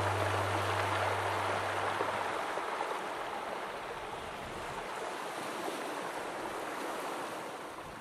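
Rushing surf-like water noise that slowly fades out, with a low steady hum dying away about two seconds in.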